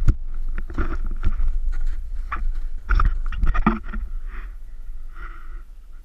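Camera handling noise: knocks and crunching scrapes of snow as the camera is moved and set down in the snow, over a low rumble of wind buffeting the microphone. The knocks are densest in the first four seconds and die away toward the end.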